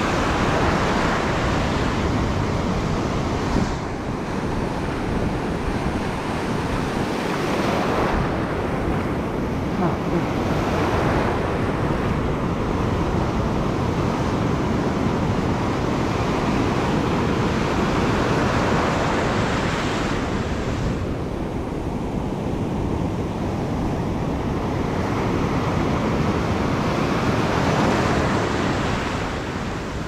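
Ocean surf breaking and washing across a rocky reef shelf: a steady loud rush that swells with each incoming wave and eases between them.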